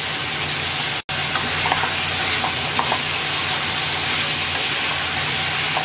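Moringa drumsticks in onion-and-spice paste sizzling steadily in a frying pan while a wooden spatula stirs them, with a few faint scrapes and ticks. The sound drops out for an instant about a second in.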